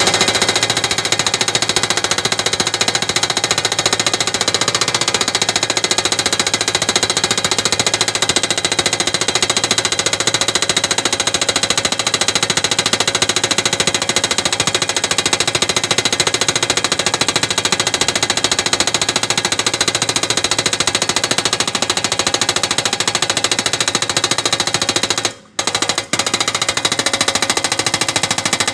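Rapid, continuous mechanical hammering, broken off twice very briefly near the end.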